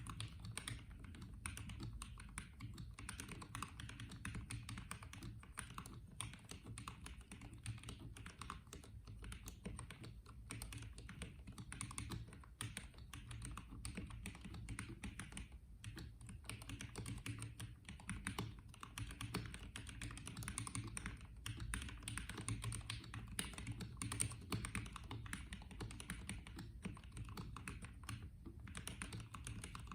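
Continuous fast typing on a Gamakay/Womier K87 mechanical keyboard fitted with Ducky pudding keycaps: a dense stream of key clacks with a few short pauses.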